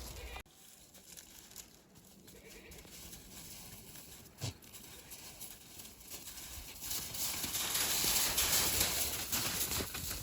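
Goats' hooves stepping on the ground, with one sharp click about halfway through and a rustling hiss that grows loud over the last few seconds.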